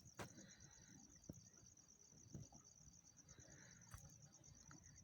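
Near silence: a faint, high-pitched, rapidly pulsing tone runs steadily underneath, with a few soft ticks.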